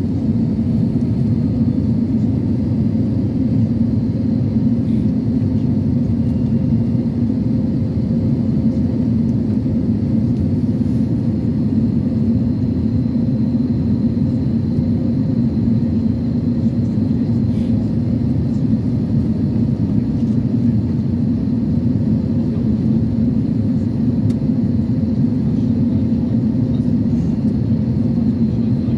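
Steady cabin rumble of an Airbus A320neo airliner descending on approach, engine and airflow noise heard inside the cabin over the wing, with a faint steady high whine above it.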